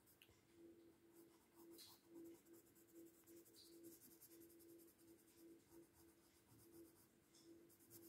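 Faint scratching of a light green colour pencil shading on paper, in repeated back-and-forth strokes.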